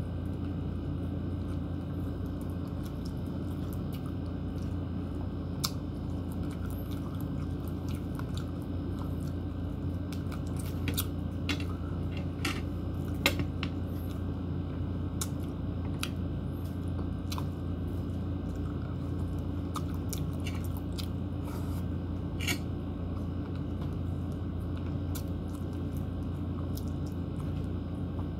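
A person chewing and biting meat from saucy lamb stew eaten by hand, with scattered small wet clicks and smacks, most of them in the middle stretch. A steady low hum runs underneath.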